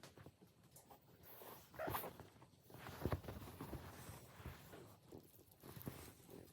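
Cat grooming itself: a run of soft, irregular licking and rubbing sounds against its fur, with louder strokes about two and three seconds in.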